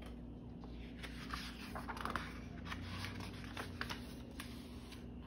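Pages of a picture book being turned by hand: faint paper rustling with a few small clicks.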